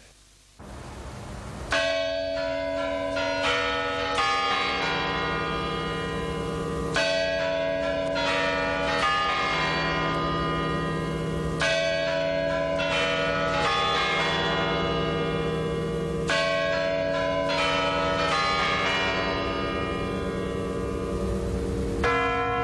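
Church bells tolling slowly for a minute of silence, starting about two seconds in: a heavy bell struck roughly every five seconds, with lighter strikes between, each ringing on long and overlapping the next.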